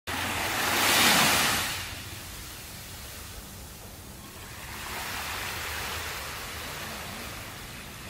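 Small ocean waves washing up onto a sandy beach: a louder wash about a second in, then a softer one around five seconds in.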